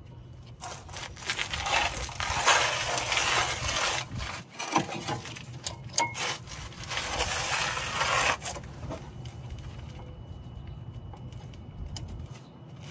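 New brake pads being slid and pressed into a car's front caliper bracket and its hardware clips: metal scraping and rubbing with scattered clicks, going quieter about eight seconds in.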